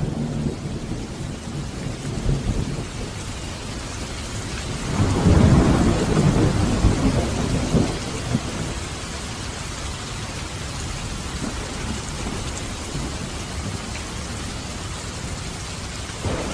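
Steady heavy rain with thunder rumbling; a loud roll of thunder swells about five seconds in and fades over a few seconds, with a brief crack near the end.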